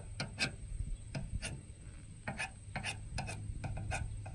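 Steel knife blade scraped against a jasper whetstone in quick, uneven sharpening strokes, about three or four a second, some louder than others.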